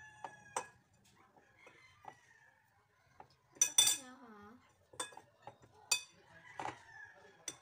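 Metal tongs and a fork clinking against a mixing bowl as chicken pieces are tossed in flour coating: a handful of sharp clinks with a short metallic ring, the loudest pair about halfway through.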